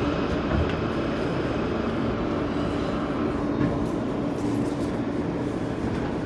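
New York City subway train running, a steady rumble of wheels and car noise with a faint steady hum.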